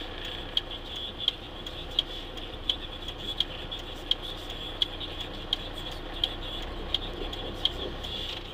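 Truck's turn-signal indicator ticking steadily inside the cab, a sharp click about every 0.7 seconds with fainter ones in between. A low cab rumble and a steady high hiss run underneath.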